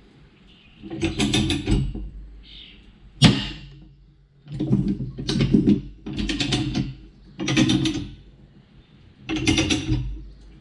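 Ratchet chain binder being cranked under load, with a burst of ratcheting clicks on each stroke of the handle, about six strokes a second or two apart, and one sharp metal clank about three seconds in. The chain is being tensioned to pull a bent steel beam back straight.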